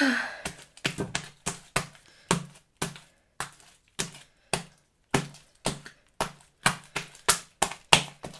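Slime being kneaded and squeezed by hand, giving a run of sharp popping clicks, about two to three a second.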